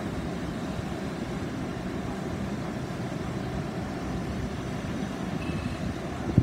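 An LNER Class 800 Azuma train standing at a platform, humming with a steady low rumble and no distinct events.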